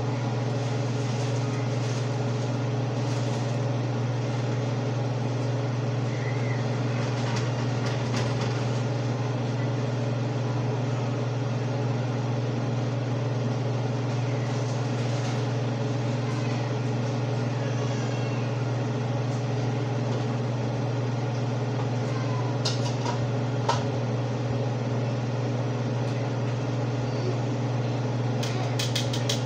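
Kitchen exhaust fan over the stove running with a steady low hum, and a few light clicks and knocks in the second half.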